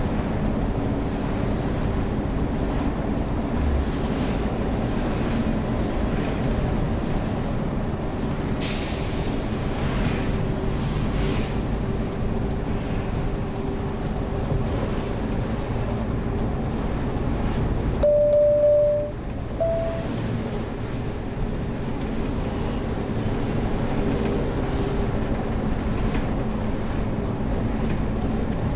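Heavy camping-car running on the road, a steady low engine and road rumble. About a third of the way in there is a short hiss. About two-thirds of the way in come two short beeps, a little higher in pitch the second time.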